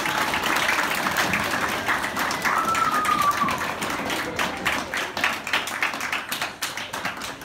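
A roomful of children and adults clapping and cheering, with a high drawn-out voice rising and falling about three seconds in. The clapping thins into separate claps toward the end.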